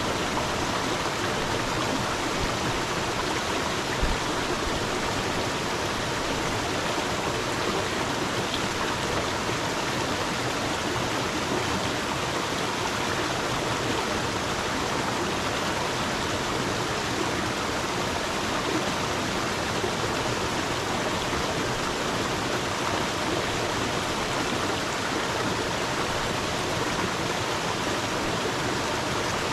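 A water stream flowing steadily, a constant even rush of running water.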